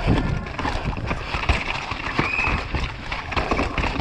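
Downhill mountain bike at speed over rough trail: tyres rumbling on dirt and rock, with a constant rapid clatter of knocks from the bike's chain and frame jolting over the bumps.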